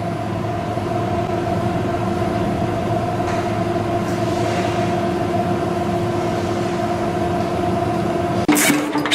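CNC torsion spring machine running with a steady hum of two held tones over a low rumble. Near the end the sound switches abruptly to sharp, repeated clacking strokes as the machine forms wire into torsion springs.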